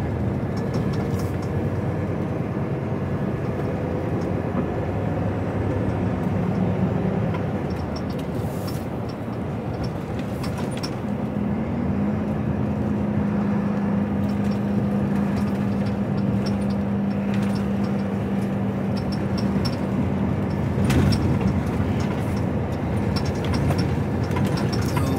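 Articulated lorry's engine and road noise heard from inside the cab while driving, the engine note holding steady for several seconds in the middle, with occasional light clicks and rattles.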